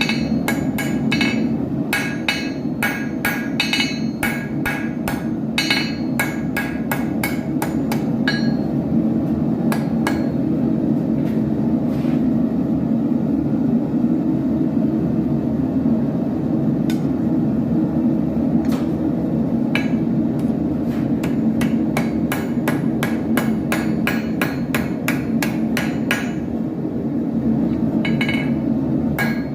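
Blacksmith's hammer striking iron on an anvil while forging an arrowhead, each blow ringing. There are quick runs of several blows a second at the start and again near the end, with only scattered strikes in the middle, all over a steady low rushing noise.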